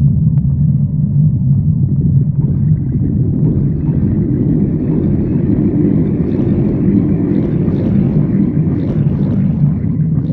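A person's stomach growling: a long, continuous low gurgling rumble that grows fuller and brighter from about two seconds in.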